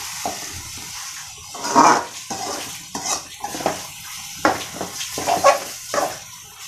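Steel spoon scraping and knocking against a metal kadai as a thick, nearly dry masala is stirred, in irregular strokes, the loudest a little under two seconds in.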